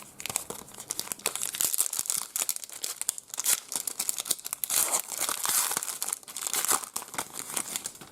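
Trading card pack wrapper crinkling and tearing as a fresh pack is torn open by hand, a dense run of crackles.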